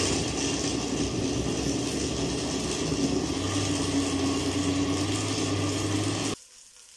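Oster countertop blender motor running steadily, puréeing raw tomatoes, tomatillos and sweet pepper into a sauce, then switched off about six seconds in.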